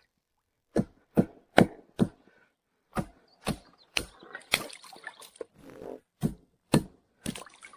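Chopping through branches with a blade: about a dozen sharp strikes on wood, roughly two a second with short gaps.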